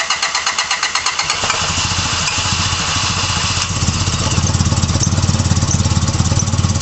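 Honda Prelude's H23A1 2.3-litre four-cylinder engine being cranked and catching about a second and a half in, then running roughly and steadily at low speed with a fast, even pulse. The throttle is held wide open, yet the engine does not rev up, a sign of a fault that starves it at full throttle.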